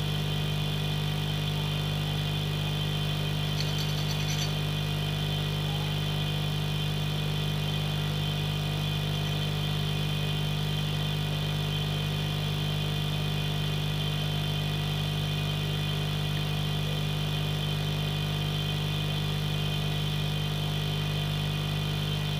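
Steady electrical machine hum from the repair bench equipment, unchanging throughout, with a faint brief hiss about four seconds in.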